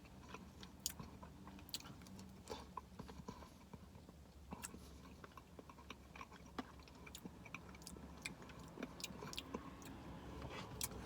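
Faint, close chewing and wet mouth clicks of a person eating soft-serve ice cream with cake pieces, made up of many small scattered clicks.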